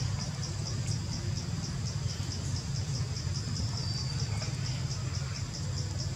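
Insects chirping in a high, even pulsing rhythm of several chirps a second, with a steady low rumble underneath.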